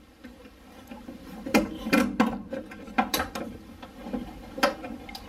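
Socket ratchet clicking in short irregular strokes as screws are driven in to mount a furnace inducer motor.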